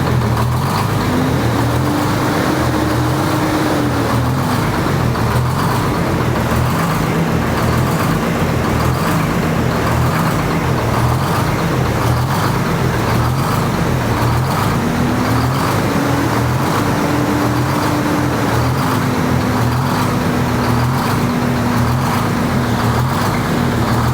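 Freshly rebuilt Detroit Diesel 6-71 two-stroke inline-six diesel running on its first start after an out-of-frame overhaul, speeding up briefly twice and settling back to a steady run.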